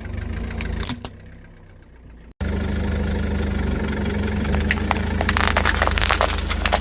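Car engine running at a low idle. From about halfway through, a rapid run of cracks and crunches sounds over it as objects are crushed under the tyres.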